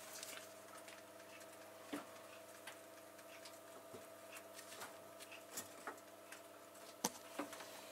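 Faint steady hum from the open electric oven, with a few light clicks and taps as silicone and enamel loaf tins are moved on the oven's wire rack.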